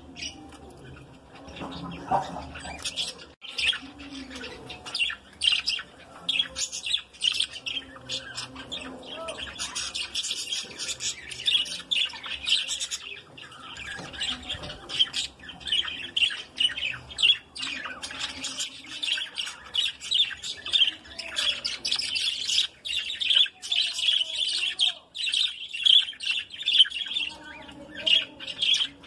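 A flock of budgerigars chattering together without a break, a dense run of short chirps and squawks.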